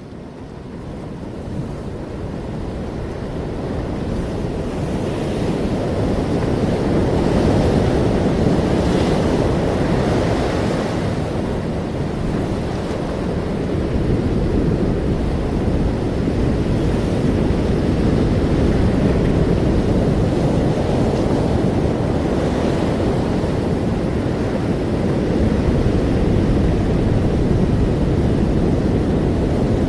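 Ocean waves washing in as a continuous rush of surf, fading in over the first several seconds, then steady, with a few stronger surges.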